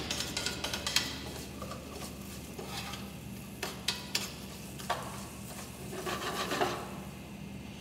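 A metal slotted spoon stirs and scrapes arborio rice around a stainless steel skillet as the rice sautés in oil, with irregular scrapes and a few sharper clinks of spoon against pan.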